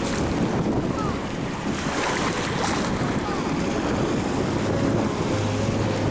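Wind buffeting the microphone in a steady low rumble, over small waves washing and splashing in shallow sea water.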